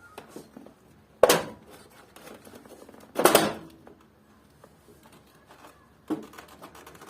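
Split air conditioner's indoor unit being lifted and pulled off its wall mounting plate: two loud clunks about two seconds apart as the plastic housing unhooks from the plate, then lighter clicks and rattles.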